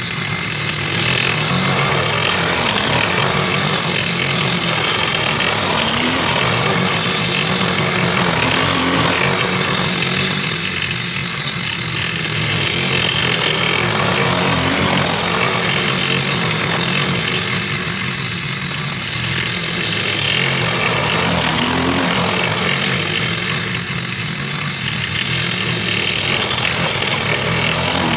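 Gas-powered lawn mower engine running steadily under load, its sound easing and swelling again every several seconds.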